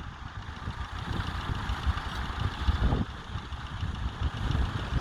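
Ford 4000 tractor engine running with a low, uneven rumble.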